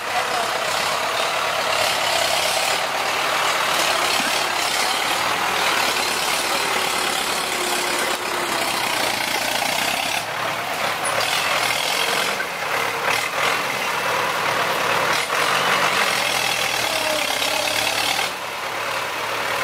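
Diesel engine of a tractor with a rear log grab running steadily under load as it drives through mud.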